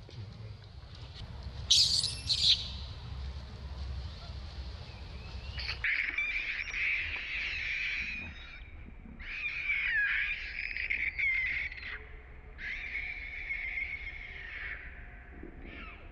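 Baby long-tailed macaque screaming: a short shrill squeal about two seconds in, then three long, wavering high-pitched cries from about six seconds on, one sliding down in pitch near ten seconds.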